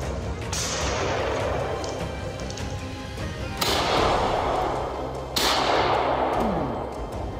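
Three gunshots, each trailing off in a long fading echo: a fainter one about half a second in, then two louder ones nearly two seconds apart. Background music plays underneath.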